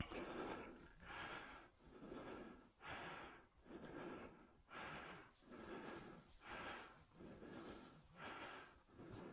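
A person breathing hard and evenly close to the microphone, about one breath a second.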